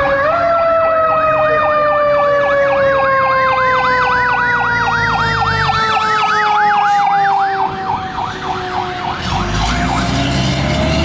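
Fire engine responding with its siren on: an electronic yelp sweeping up and down about four times a second over a steady siren tone that slowly falls in pitch. Near the end the yelp stops and the truck's engine rumble comes up as it passes close.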